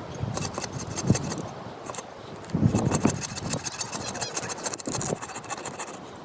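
Hand saw cutting through a piece of firewood, a run of repeated rasping strokes that quickens and grows denser partway through.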